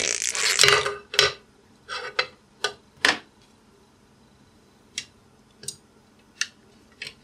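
Flexible magnetic 3D-printer build sheet being flexed and handled, with a crackling rustle in the first second as the printed part comes away. This is followed by a scattered series of light clicks and taps as the sheet is laid back onto the printer bed.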